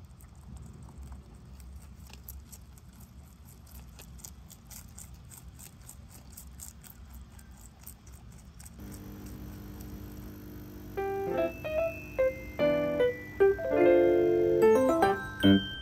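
A rabbit chewing crunchy lettuce in quick crisp bites, about four a second. About nine seconds in, soft background music comes in, and from about eleven seconds piano music is the loudest sound.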